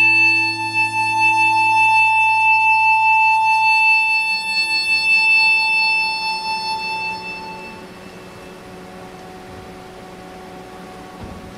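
Harmonica holding one long high note that fades out about seven seconds in, with a low accompanying chord dying away beneath it about two seconds in. Then only quiet hall ambience remains.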